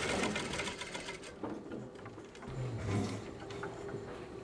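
Industrial sewing machine stitching at speed, a fast, even mechanical rattle that stops about a second in.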